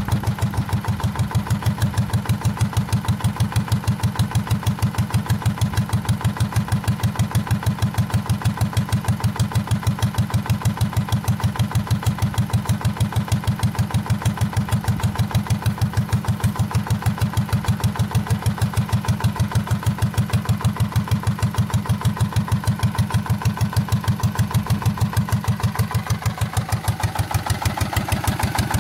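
Vintage Petter PAZ1 1.5 BHP single-cylinder diesel engine running steadily with an even firing beat, belt-driving an alternator that is charging batteries.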